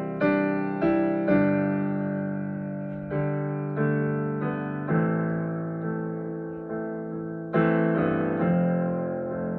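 Solo piano playing slow, improvised chords, each struck and left to ring and fade, a new chord every second or so.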